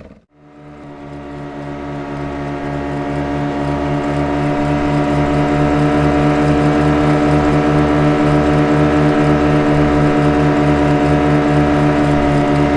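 Motorboat engine running at a steady speed, a pitched hum with a regular pulse of about four to five beats a second. It fades in from near silence just after the start.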